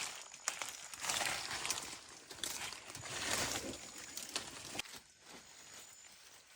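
Rustling and crinkling that swells twice, with scattered sharp clicks and taps, as of something being handled.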